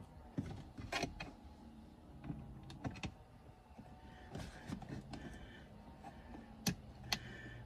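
Hands working at the instrument cluster opening behind a BMW X5 E70's steering wheel: scattered clicks and knocks of the cluster and dash parts being handled and fitted, the two sharpest clicks near the end, over a faint low hum.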